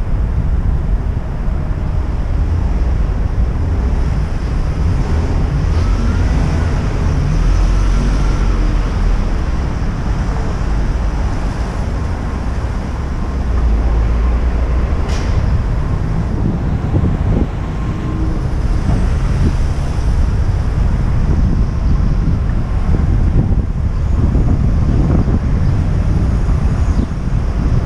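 Wind buffeting the microphone of a helmet-mounted action camera while cycling, over the rumble of downtown street traffic. A single sharp click about halfway through.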